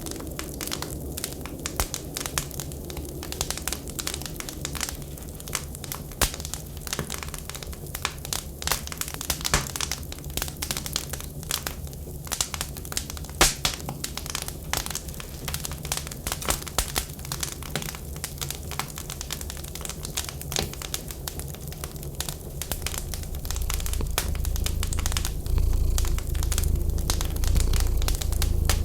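Wood fire crackling in a fireplace, with a dense, irregular run of sharp pops and snaps over a steady low rumble. The rumble grows louder near the end.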